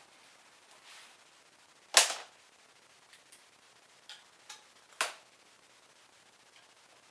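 Flathead screwdriver levering a car's flex plate round through the motor mount: two loud, sharp clicks about three seconds apart, with a few fainter ticks between them.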